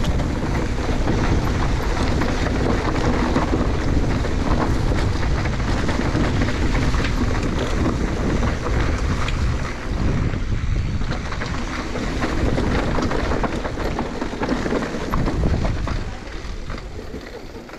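Wind rushing over the camera microphone and the rumble of mountain bike tyres on the trail while riding, dropping off in the last couple of seconds as the bike slows.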